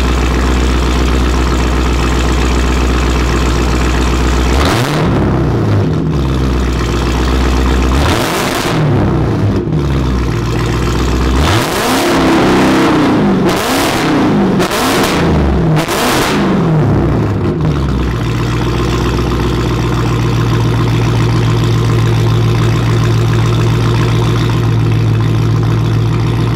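Straight-piped, supercharged 6.2-litre Hemi V8 of a Dodge Challenger SRT Hellcat, just warmed up after a cold start, idling and then revved through a series of sharp blips that rise and fall between about five and seventeen seconds in, before settling back to a steady idle. Really loud.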